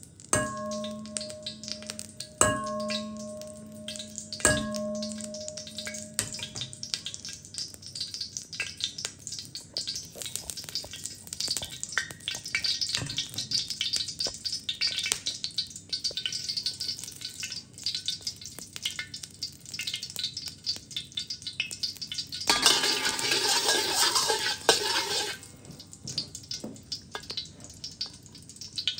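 A wok rings three times in the first five seconds as metal strikes it, then hot oil sizzles in the wok with the clicks and scrapes of a metal spatula. About 22 seconds in, a loud burst of sizzling lasts nearly three seconds as food goes into the hot oil.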